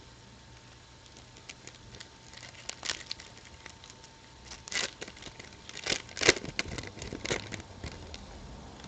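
Crinkling and tearing of trading-card pack packaging as a pack is opened and the cards are handled, in a series of short crackles and rustles, loudest a little past the middle.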